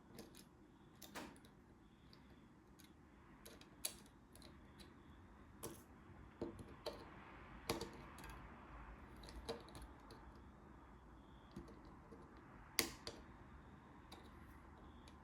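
Scattered small clicks and taps of plastic and metal parts being handled while a spring-loaded contact is fitted into a brake light switch housing, with one sharper click near the end.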